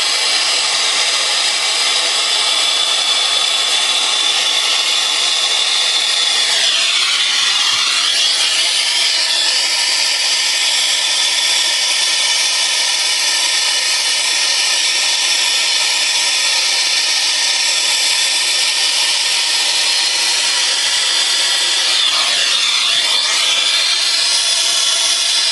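Brazing torch flame hissing steadily while copper refrigerant tubing is brazed. The tone of the hiss shifts twice, around seven seconds in and again near the end.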